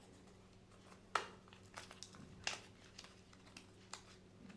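Light handling of a Swiss Army knife and its packaging as it is put back in its box: a sharp click about a second in, then a few softer clicks and rustles.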